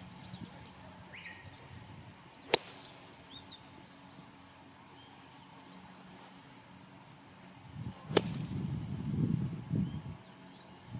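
Golf wedge splashing through bunker sand on two practice shots: a sharp crack about two and a half seconds in and again about eight seconds in, the second followed by a couple of seconds of low rustling. Birds chirp faintly in the background.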